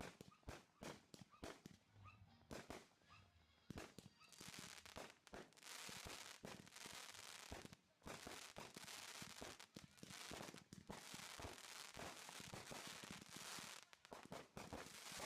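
Consumer fireworks going off in a rapid string of sharp pops. About four seconds in they build into dense, continuous crackling, which breaks off briefly near the eight-second mark and then carries on.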